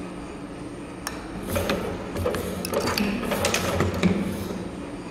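Cam-type CNC spring-making machine running: a steady motor hum, with a quick, busy run of metallic clicks and clacks from its tool slides working on the wire from about a second and a half to four and a half seconds in, the sharpest click near the end of that run.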